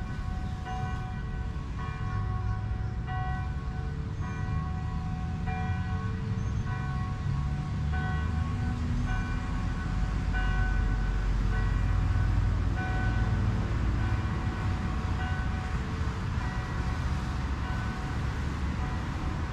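Distant bells ringing, a long run of strikes at about one a second at several pitches, over a steady low rumble.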